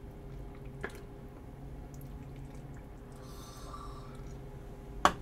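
Ladle scooping spicy hotpot broth and pouring it into a ceramic bowl: soft dripping, sloshing liquid, with a light click about a second in and a sharper knock of the ladle near the end, over a faint steady hum.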